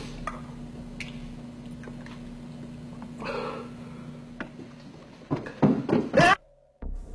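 A man eating soup and crying, with wet slurping and muffled sobs over a steady hum from an old tape recording. From about five seconds in come several loud, strained, wavering cries, which cut off suddenly.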